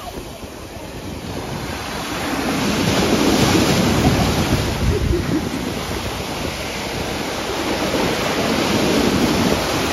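Surf breaking in the shallows, a steady rush of foaming water that swells as a wave breaks about three seconds in and again near the end.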